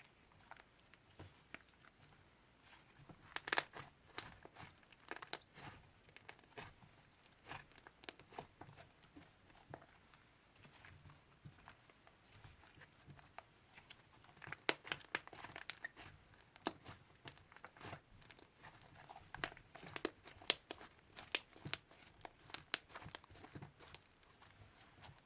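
Slime being squeezed and kneaded by hand, giving irregular sticky clicks and small crackling pops that come in denser flurries about four seconds in and again from about fourteen to twenty-three seconds.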